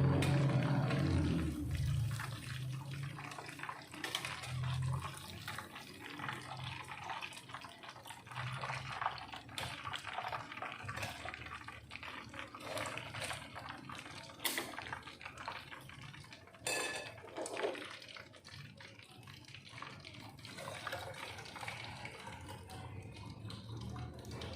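Water running from a tap and splashing in a kitchen sink, with irregular clinks of pots and dishes being handled.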